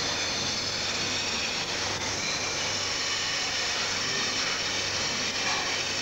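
High-pressure commercial dishwashing machine running: a steady hissing rush over a low, even hum.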